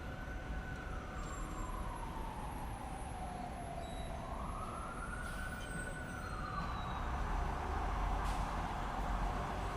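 Emergency vehicle siren in a slow wail, rising and falling twice, over steady city traffic rumble. The traffic grows louder near the end.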